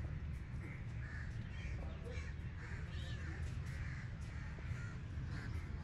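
Birds calling over and over in short, harsh calls, about two a second, over a steady low rumble.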